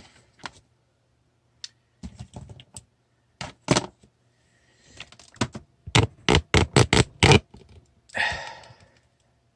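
Small plastic drone parts and tools clicking and tapping on a workbench while a micro drone is being reassembled, with a quick run of sharp clicks about six seconds in and a short rustle near the end.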